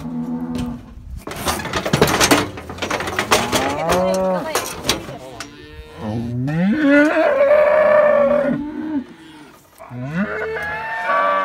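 Cow mooing repeatedly, about four calls: one near the start, one about four seconds in, a long drawn-out call in the second half, and another near the end. A rough, noisy stretch comes about a second and a half in.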